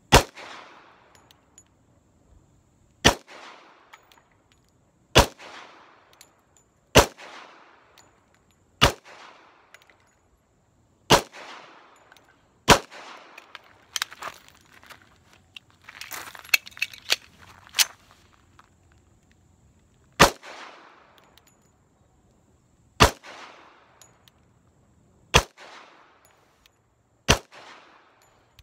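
A .45 ACP 1911 pistol firing slow, deliberate single shots about two seconds apart, each with a short echo: seven shots until the slide locks back empty. Clicks and clacks of a magazine change follow, then four more shots.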